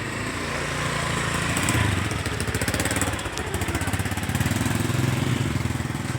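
An engine running close by with a throbbing, pulsing hum. It grows louder over the first two seconds, dips briefly, then swells again.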